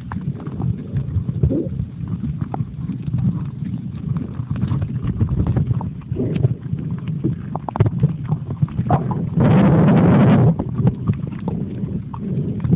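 Muffled underwater noise picked up by a phone sealed in a waterproof pouch: a steady low rumble of moving water with frequent small clicks and knocks. About nine seconds in, a louder rush of noise lasts about a second.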